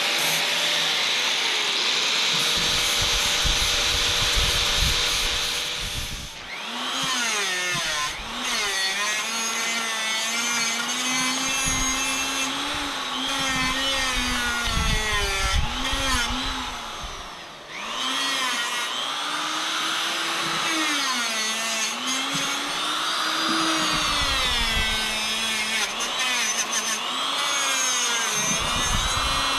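A handheld power tool working an aluminium motorcycle crankcase. It starts with a steady rough grinding for about six seconds, then the motor's whine repeatedly sags and recovers in pitch as the tool bears on the metal.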